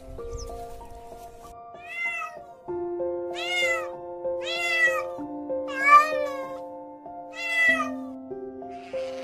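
A cat meowing five times, each call rising then falling in pitch, spaced about a second or so apart, over background music with long held notes.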